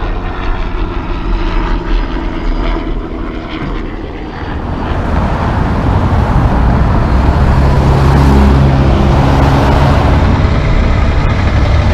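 A heavy diesel truck engine hums steadily. About four seconds in, passing car traffic takes over, and a Peterbilt semi's diesel engine grows louder as it drives toward the intersection. Its low drone is the loudest sound near the end.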